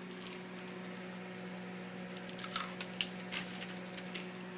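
Microwave oven running with a steady electrical hum, heating a bowl of snow; a short run of sharp clicks and crackles comes about halfway through.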